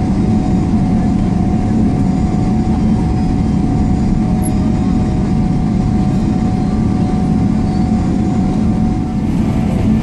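Steady cabin noise inside a Boeing 777-300ER: a constant low rumble of engines and airflow with a thin steady tone above it.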